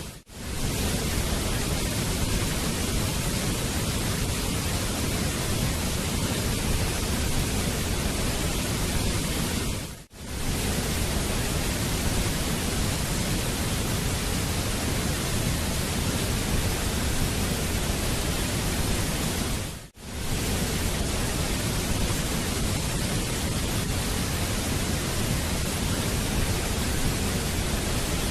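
Waterfall rushing in a steady, even roar of water noise, as a looped recording that dips out briefly and comes back about every ten seconds.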